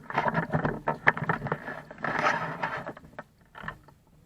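Rustling and scraping of a moving airsoft player's gear and footsteps, with many irregular clicks and knocks. It dies away a little after three seconds in.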